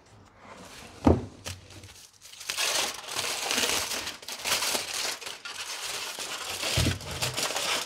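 Aluminium foil wrapped around a baked white oak round crinkling steadily as it is handled and pulled open. Two knocks stand out, about a second in and near the end.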